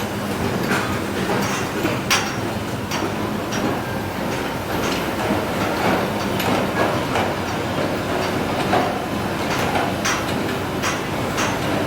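Sany SR150C hydraulic rotary drilling rig working: its engine and hydraulics run with a steady hum, broken by irregular sharp knocks and clanks every second or so.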